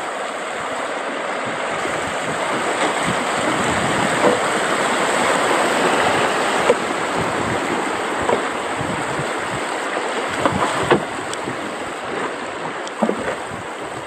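Shallow river water rushing and splashing over rocks around a bamboo raft, swelling to its loudest about halfway through, with a few short knocks and splashes.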